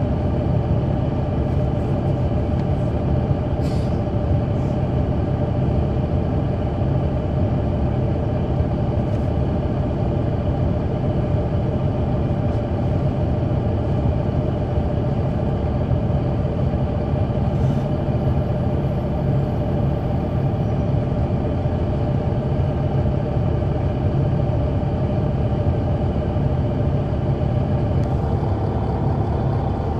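Caterpillar C9 ACERT diesel engine of a 2004 Neoplan AN459 articulated transit bus, heard from inside the bus, running steadily at a nearly constant pitch.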